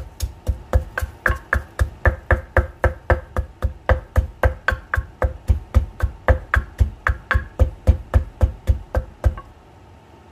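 Pestle pounding garlic, chillies and salt in a mortar: steady heavy thuds about four a second that stop about nine seconds in, with the paste now ground fine.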